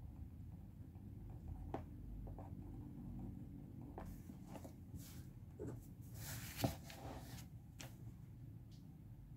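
Ballpoint pen writing on workbook paper, quiet scratches and light taps of the tip, over a low steady room hum. Around six to seven seconds in, a rustle of paper sliding, with one sharp click, the loudest sound.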